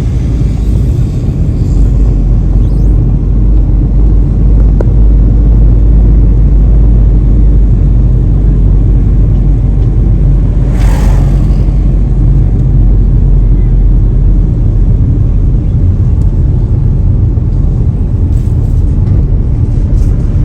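Steady, heavy road and engine rumble inside a moving car, with a brief rush of noise about eleven seconds in.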